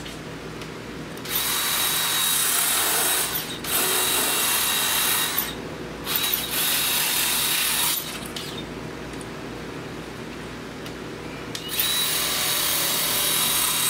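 Cordless drill spinning a wire wheel brush against the glued perimeter of the BMW's PCV diaphragm seat, scuffing the surface to rough it up for glue. It runs in four bursts of about two seconds each, with a longer pause before the last.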